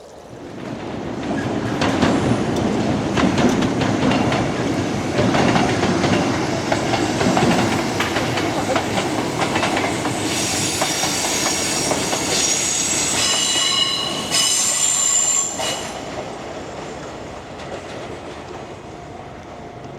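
A Kintetsu Minami Osaka Line train passing over the level crossing: its rumble on the rails builds about a second in and stays loud, with high wheel squeal from about ten seconds in, then dies away after about sixteen seconds.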